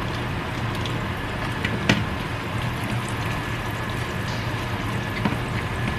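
An egg frying in sausage grease in a pan, a steady sizzle, with a sharp click about two seconds in and a lighter one near the end.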